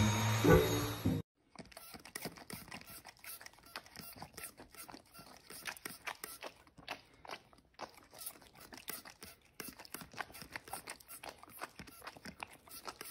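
Music stops about a second in. Then a dog nibbles at the plastic trigger of a spray bottle, making faint, quick, irregular clicks and crunches.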